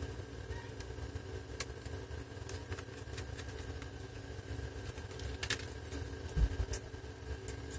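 Steady low engine hum from a digger working nearby, under light metallic ticks of a screwdriver driving screws into a laptop drive caddy. A short low thump about six seconds in.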